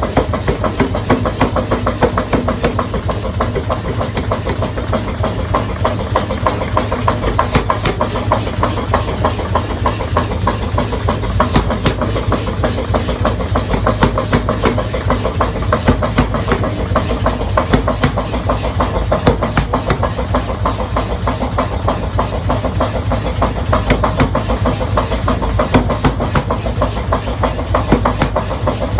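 Factory machinery running continuously, with a dense stream of rapid knocks and clatter over a steady hiss.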